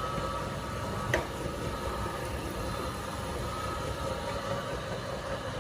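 Electric meat grinder motor running steadily, with a single sharp click about a second in.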